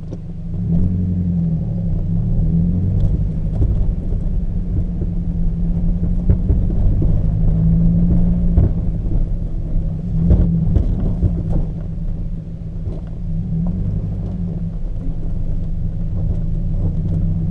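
Peugeot 206 with a steady low rumble and scattered knocks and clunks from the front end, the strongest about ten seconds in. The owner traced the knocking to worn engine mountings.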